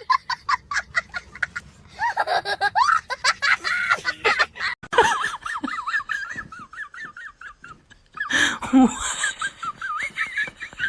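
High-pitched laughter, in quick even pulses for the first two seconds, then wavering giggles, with a short break about eight seconds in.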